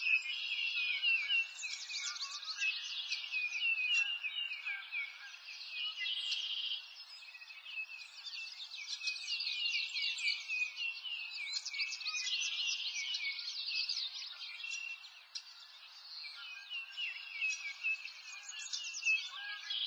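Many small birds chirping and twittering together in a dense, continuous chorus of quick high chirps and trills.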